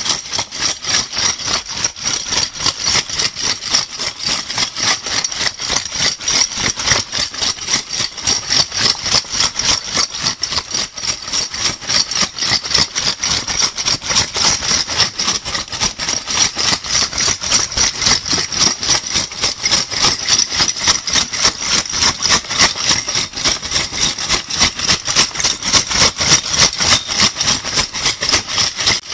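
A handful of metal crown bottle caps shaken over and over, a steady jingling clatter in a quick, even rhythm of several shakes a second.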